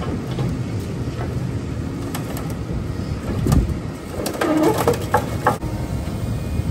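Diesel engine of a Fuchs material handler running steadily as its grapple lifts a stripped truck frame. Metal clanks and knocks, with a wavering creaking squeal about four to five seconds in as the frame comes up off the trailer.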